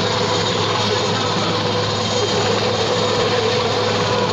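Military transport helicopter hovering low overhead: a loud, steady rotor and turbine drone with a constant low hum and a higher steady tone.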